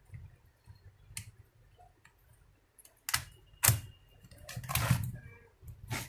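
Sharp plastic clicks and knocks as a battery pack is fitted into an Acer mini laptop and snapped into its bay. A few light clicks come first, then the loudest knocks about three to four seconds in.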